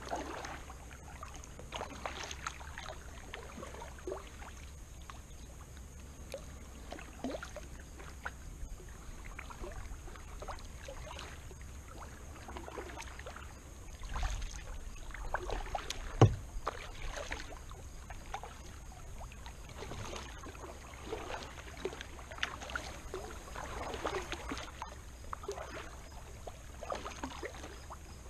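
Kayak paddling: a double-bladed paddle dipping and pulling through the water, with splashes and drips every second or two. A single sharp knock, the loudest sound, comes about halfway through.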